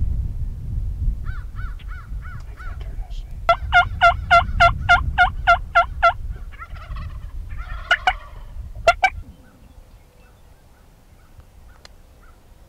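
Wild turkey calling: a loud, even series of about a dozen yelps, about four a second, followed near the end by a short rattling gobble-like burst and two sharp notes.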